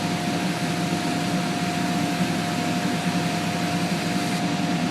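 Woodshop disc sander running steadily along with the shop's dust collector: a constant high whine over a dense low hum.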